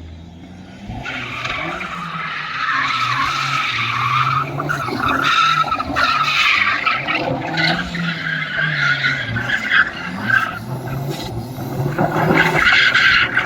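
Turbocharged BMW E36 316's M43 four-cylinder engine revving up and down as the car drifts on dirt, with the tyres spinning and a loud hissing rush over the engine note. The sound swells about a second in and is loudest again near the end.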